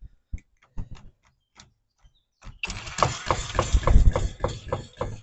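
A jigsaw used to vibrate a homemade shaker table switches on about two and a half seconds in and runs with a steady mechanical noise and a rhythmic knocking about three times a second. A few faint clicks come before it starts.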